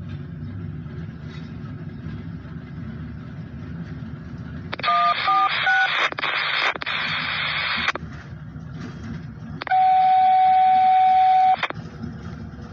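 A low steady rumble, then about five seconds in a radio scanner cuts in with a quick string of touch-tone beeps and a rush of static. Later a single steady tone sounds for about two seconds over the hiss.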